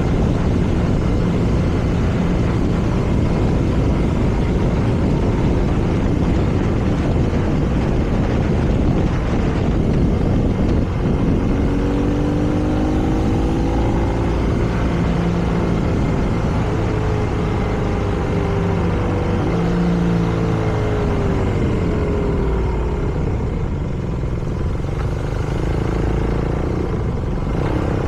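BMW R nineT's air/oil-cooled boxer twin under way, with heavy wind and road noise. Over the second half the engine note rises and falls several times as the throttle opens and closes.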